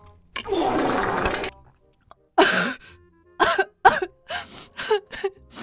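A woman coughs and splutters for about a second, then whimpers and sobs in a string of short breathy cries, her mouth burning from extremely spicy ghost-pepper noodles.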